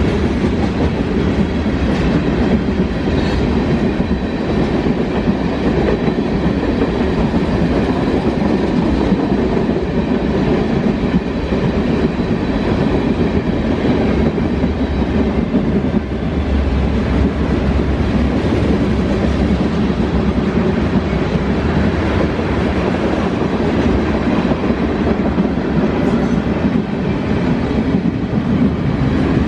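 Freight train cars rolling past on the track: a loud, steady rumble of wheels on rail.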